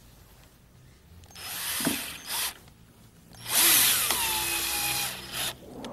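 Cordless drill/driver driving screws to fit hinges into wood: two short bursts, then a longer run of about two seconds whose whine falls in pitch.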